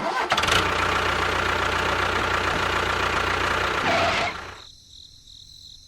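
A small engine or motor running steadily, then cutting off abruptly about four seconds in, leaving only a faint hum.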